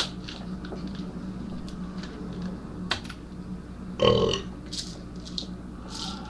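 A man burps once, loudly, for about half a second, some four seconds in. Sharp clicks come at the start and a few more follow, over a steady low hum.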